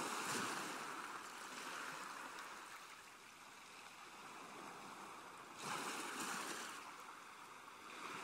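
Rushing, swishing water over a steady soft hiss, swelling up twice: at the start and again about six seconds in.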